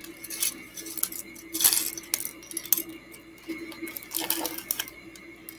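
Small plastic Lego pieces clicking and clattering as they are handled, with a longer rustle at about one and a half seconds in, over a faint steady hum.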